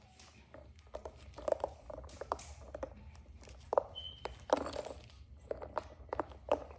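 Two Shih Tzu puppies playing: paws scrabbling on a quilted pad and mouths working a spiky rubber ball, making irregular small taps, rustles and chewing sounds, with a few louder knocks.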